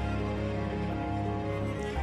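Soft instrumental background music with sustained tones over a steady low pulse.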